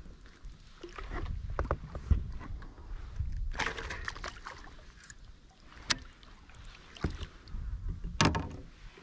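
Handling noises in a fishing kayak: knocks and scrapes against the hull over a low rumble, a short rush of noise a little before halfway, and a few sharp clicks in the second half.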